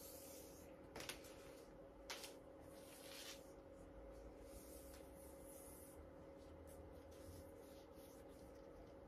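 Near silence with faint handling noises: soft clicks about one and two seconds in and a brief rustle as a cloth tape measure is wrapped around the chest, over a faint steady hum.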